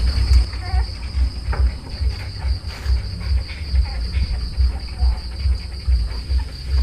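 Steady high-pitched insect chirping over an irregular low rumble, with faint short squeaks and suckling noises from dachshund puppies nursing at their mother.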